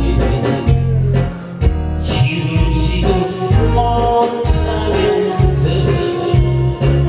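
Loud amplified song music with a heavy, regular bass beat and sustained instrumental tones; no clear lyrics.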